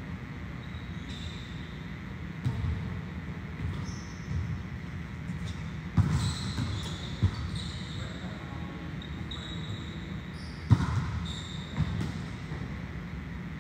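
Volleyballs being served and passed in a gym: about five sharp slaps of ball contact and bounces, the loudest about six seconds in and about eleven seconds in, with short high squeaks in between over a steady hall hum.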